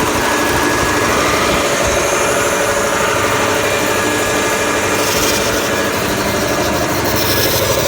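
Piston air compressor running steadily with a loud mechanical drone and hiss, the hiss growing brighter about five seconds in. The compressor has a damaged piston that gives no compression and vibrates as it runs.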